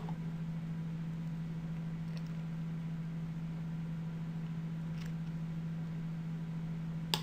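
Steady low electrical hum of a desk recording setup, with a faint click about five seconds in and a sharper click near the end, typical of a computer mouse button.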